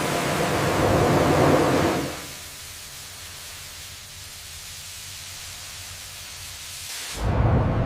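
Sawmill machinery running with a loud, steady hiss-like noise that drops sharply to a much quieter hum about two seconds in, then comes back loud and rumbling about seven seconds in.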